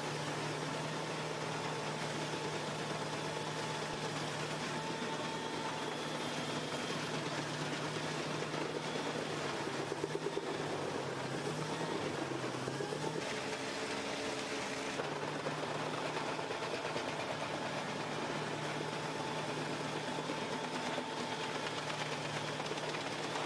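A heavy machine's engine runs steadily, its pitch dipping briefly about halfway through, as if under load, before settling again.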